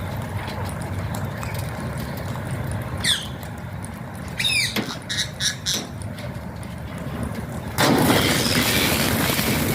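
Alexandrine parakeet giving a few short, sharp squawks and chirps between about three and six seconds in, one of them a quick falling chirp, over a steady low hum. Near the end a loud rushing noise sets in and covers everything for about two seconds.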